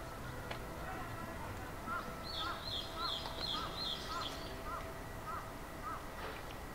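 Birds calling: one gives a run of about eight short repeated notes, roughly two a second, starting about two seconds in, while a higher-pitched call of about five quick notes runs over the first part of it.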